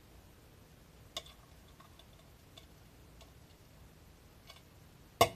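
A clear plastic bowl being handled against a cup: a few light clicks and taps, with one sharp knock near the end.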